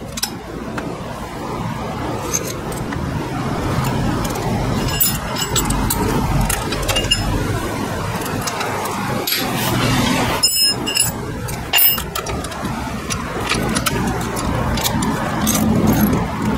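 Scattered metal clicks and clinks of a T-handle socket wrench and a long 12 mm bolt being turned into a scooter's swing arm mount, over a steady background rush.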